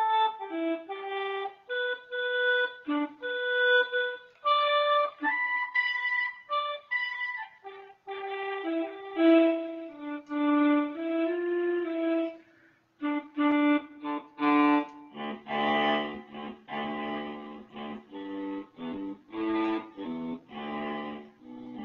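Akai EWI 5000 electronic wind instrument played on its Alto Sax 1 voice. It plays a melody of single notes, some held and some short. About halfway through the line drops lower and turns fuller, with quick repeated notes.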